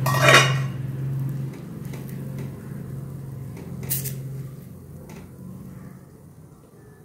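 Cookware handling at a nonstick appam pan: a loud metal clatter and scrape near the start as the steel lid comes away, then a short sharp scrape about four seconds in as a spatula lifts the cooked wheat-flour cake from the pan. A low steady hum runs underneath.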